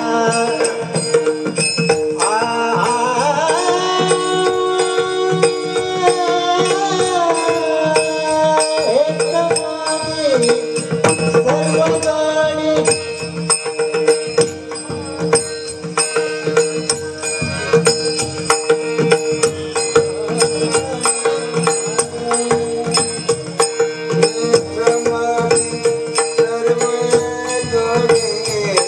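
Indian devotional bhajan music in raga Bhairavi: a gliding melody over a steady drone, with tabla and a rapid, even percussion beat.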